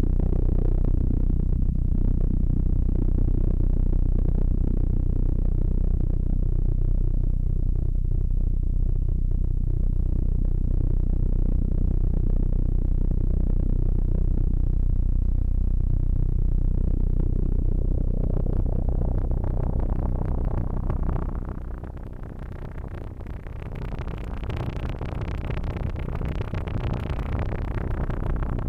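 Kilpatrick Audio Phenol analog synthesizer playing an ambient drone: sustained low bass tones, which thin out about two-thirds of the way through as a brighter, higher swell rises and grows.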